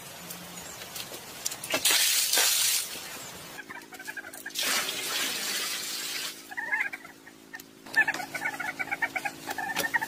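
Water poured from clay pots splashing into a pool, in two bursts. Small birds chirping repeatedly through the second half.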